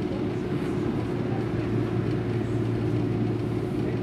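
Steady low hum inside a Toyohashi Railway 3500-series tram car while it stands still, with no change in pitch or level.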